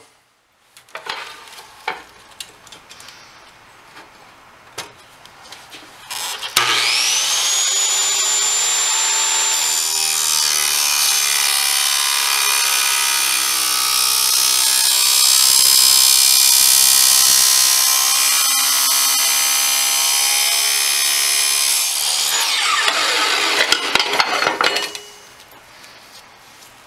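Chop saw cutting a 4130 chrome-moly steel tube to length for a pistol barrel. After a few light handling clicks, the motor starts about a quarter of the way in with a whine that climbs to a steady high pitch. The blade then cuts loudly through the tube for about twelve seconds, and the saw is switched off and winds down with a falling whine.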